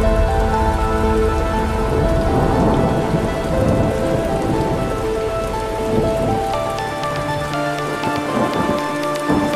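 Ambient synthesizer music with long held notes, layered with a rain sound effect and a rolling thunder rumble that is heaviest in the first few seconds and then fades away.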